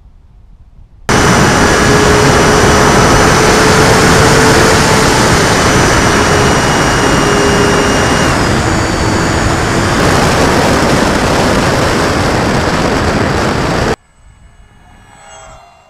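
Loud wind rush on an onboard camera riding an FMS Cessna 182 RC plane in flight, with the steady whine of its electric motor and propeller. The whine drops in pitch a little past halfway as the throttle is eased. The noise starts abruptly about a second in and cuts off abruptly near the end.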